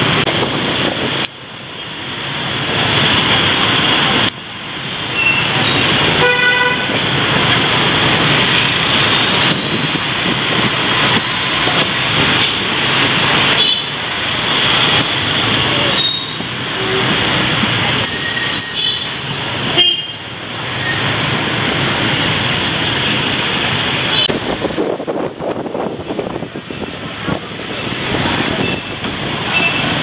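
Busy street traffic of motorbikes and cars, with a horn honking about six seconds in and other short toots. The sound breaks off and picks up again a few times.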